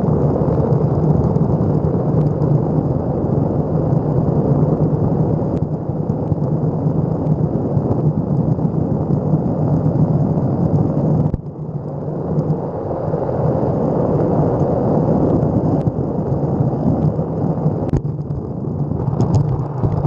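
Steady rumbling road noise from riding an electric skateboard: wheels rolling on pavement, with wind on the microphone. The level drops briefly about eleven seconds in.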